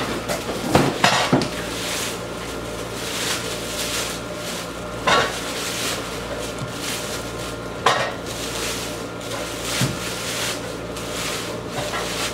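Plastic wrapping crinkling and cardboard rustling as a big chainsaw is lifted out of its box and unwrapped, with sharp handling noises about a second in and again around five and eight seconds.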